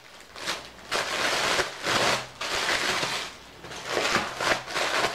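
Clear plastic packaging bag crinkling and rustling in irregular bursts as items are pulled out of it and handled.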